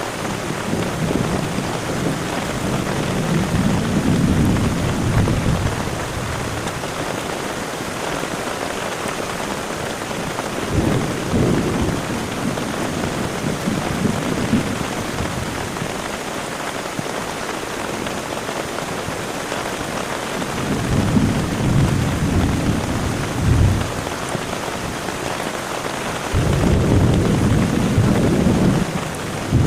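Heavy rain falling steadily, with thunder rolling several times through it: longer rumbles near the start, past the middle and near the end.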